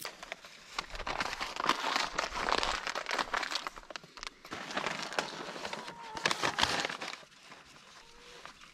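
Paper seed bag crinkling and rustling as it is handled close to the microphone, in a run of dense crackles that fades out about a second before the end.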